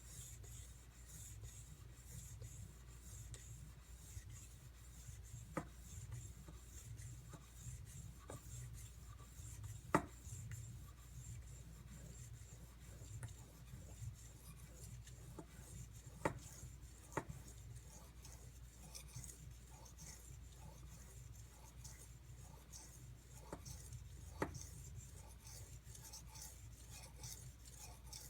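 Knife blade being stroked back and forth on a whetstone, a soft scraping rub as the bevel is ground toward the apex. A few sharp clicks break in, the loudest about ten seconds in.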